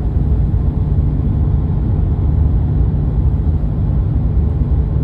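Steady low rumble of road and engine noise inside a truck's cabin while driving at highway speed.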